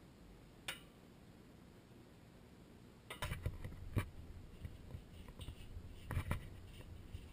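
Quiet handling sounds: one sharp click about a second in, then from about three seconds in a run of clicks and rustles as a hand works a paper tag on a well pressure tank.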